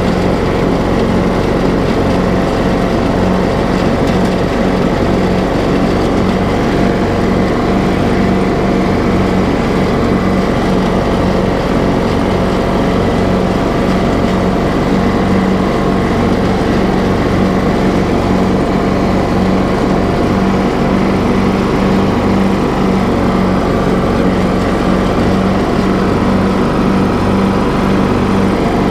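TroyBilt riding lawn mower's engine running steadily while mowing, with the blades engaged and cutting grass.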